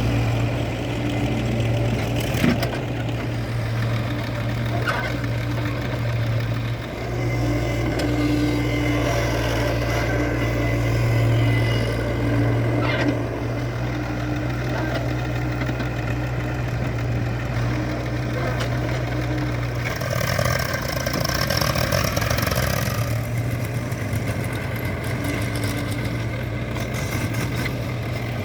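Heavy diesel machinery engine running steadily, with a few sharp clanks. About twenty seconds in, a hissing rush rises over the engine for a few seconds.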